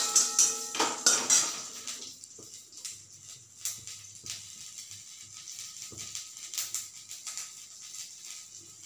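Steel kitchen utensils clinking: several sharp knocks with short metallic ringing in the first two seconds, then only occasional light clicks.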